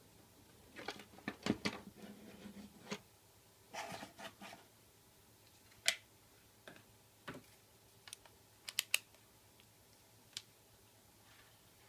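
Irregular small clicks, taps and brief scraping as hands handle a plastic LED flashlight's opened housing and its lead-acid battery. The sounds come in clusters in the first half, then as scattered single clicks.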